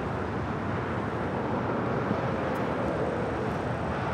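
Steady rushing noise of jet aircraft engines running at the airfield, with a faint whine that drifts a little in pitch partway through.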